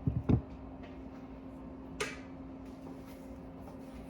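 Tools being handled while a smaller flathead screwdriver is fetched: two dull knocks right at the start, then a sharp click about two seconds in, over a steady low hum.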